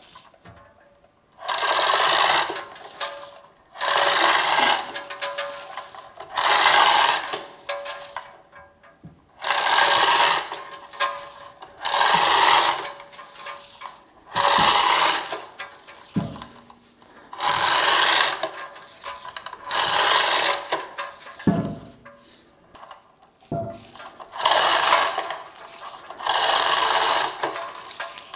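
Manual chain hoist being hauled by its hand chain in repeated pulls, chain and hoist mechanism rattling in bursts about every two seconds, about ten in all, with a few short knocks between them. The hoist is under load, lifting the heavy cast-iron knee of a milling machine.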